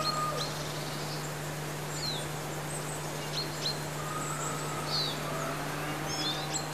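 Outdoor birdsong: many short, high chirps scattered throughout, with a longer steady whistled note about four seconds in. A faint steady low hum runs underneath.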